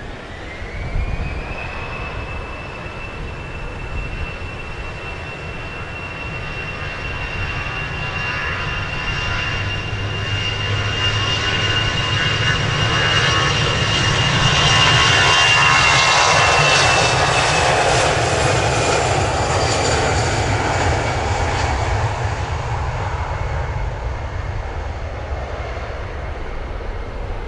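Airbus A320-family jet airliner's turbofan engines at high thrust: a high whine rises in the first two seconds and then holds steady, while the engine noise builds to its loudest about halfway through and fades over the last several seconds as the aircraft passes.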